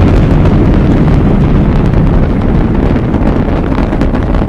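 Saturn V rocket's first stage, its five F-1 engines at full thrust during the climb after liftoff: a loud, steady low rumble laced with crackling.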